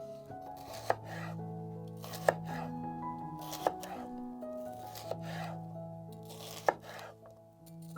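Knife chopping on a cutting board: a sharp knock about every second and a half, each with a brief cutting rasp, over background music.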